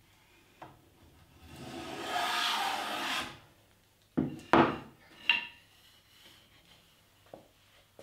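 A metal bench plane and pine strips being handled on a wooden workbench. A two-second sliding rub comes first, then two sharp knocks about half a second apart as things are set down, a lighter knock with a short metallic ring, and a soft tap near the end.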